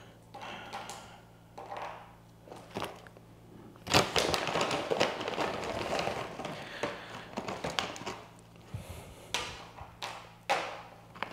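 Crinkling of a plastic dog-treat bag being handled, with a few sharp knocks and taps. The loudest stretch of rustling starts about four seconds in and lasts a few seconds.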